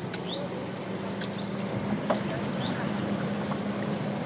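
Car engine idling steadily in stopped traffic, heard from inside the vehicle as a low hum, with a few faint short chirps in the background.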